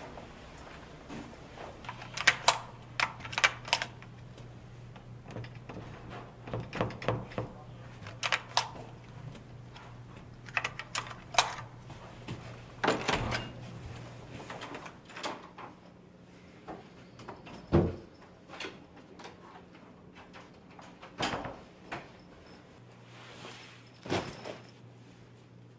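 An electronic keypad door lock and its lever handle being worked, a series of clicks and knocks as the door is unlocked and opened, followed by footsteps. Near the end comes a soft thump as a bag lands on a bed.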